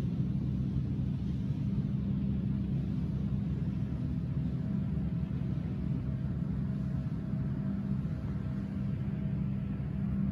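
Steady low rumble with a faint steady hum underneath, unchanging throughout.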